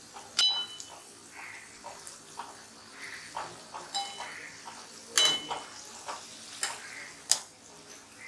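Onion bhaji deep-frying in oil in a metal kadhai, with a steady sizzle. A wire-mesh skimmer turns them over and clinks against the pan several times, ringing briefly; the loudest clink comes about five seconds in.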